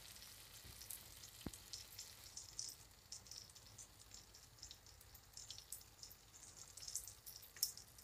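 Faint crackling sizzle of hot oil and sauce in the pans, with a single light click about one and a half seconds in.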